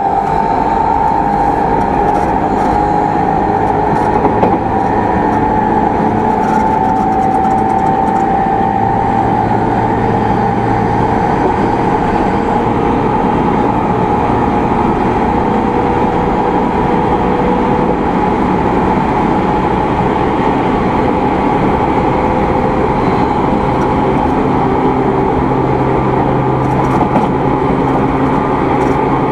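Running sound of an E217 series electric multiple unit heard inside a MoHa E216-2000 motor car: traction motor hum and wheels on the rails in a steady drone while the train runs along.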